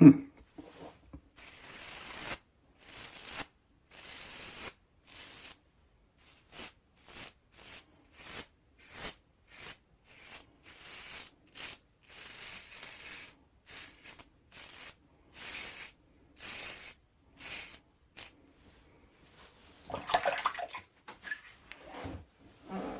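A 3D-printed safety razor scraping through four days of stubble under lather: a long run of short, crunchy strokes, about one and a half a second. A sharp knock right at the start and a louder clatter of noise near the end break the run.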